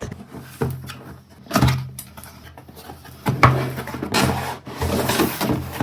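Cardboard product box being opened and its packed parts handled: a series of noisy rubbing, scraping passes, the longest and loudest in the second half.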